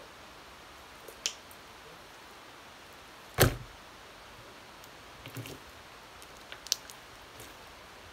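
A big lump of slime slapped down onto a flat board with one loud thud about three and a half seconds in, with a few small clicks and taps from handling it before and after.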